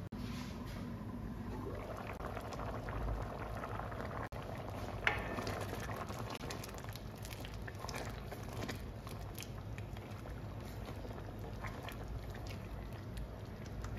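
Thick pea stew bubbling and simmering in a stainless steel pan, stirred with a wooden spoon, with a single clink about five seconds in.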